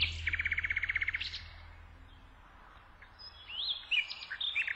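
A songbird singing: short whistled notes, each phrase ending in a rapid trill, with a pause of about two seconds between a first phrase and a second that starts about three and a half seconds in.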